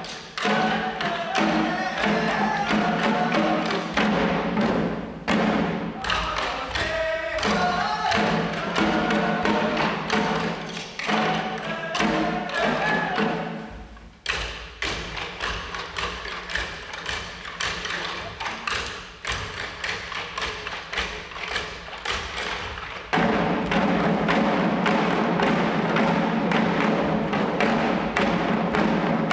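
Shishi odori deer dancers beating the drums slung at their chests in a quick, steady rhythm, with voices singing over the drumming in the first half. The drumming drops quieter and sparser for a stretch in the middle, then comes back loud near the end.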